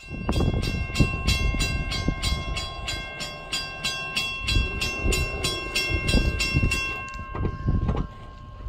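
Railroad crossing bell ringing in a quick, even rhythm over the low rumble of a passing Amtrak passenger train. The bell stops about seven seconds in, leaving a few wheel clacks.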